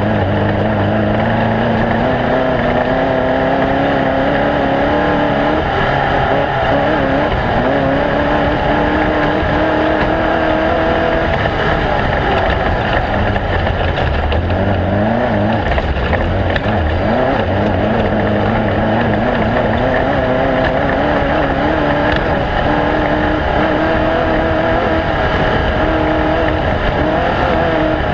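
Off-road race vehicle's engine running hard under acceleration. Its pitch climbs for several seconds and then drops at each gear change, a few times over, over steady rushing noise.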